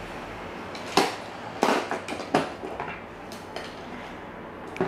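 A series of sharp knocks and clatters, about half a dozen, from small plastic toys being knocked against each other and against a toy box; the first loud knock comes about a second in and another right at the end.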